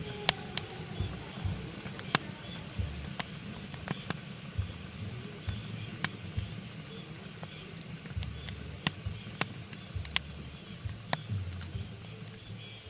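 Pine logs burning in a fireplace, crackling with sharp, irregular pops, several a second, over a low, steady rumble of the flames.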